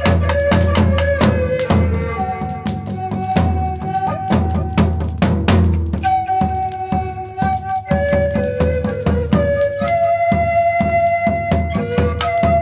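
A flute playing a melody of held notes that step between pitches, over a steady drum beat with a low thump on each stroke.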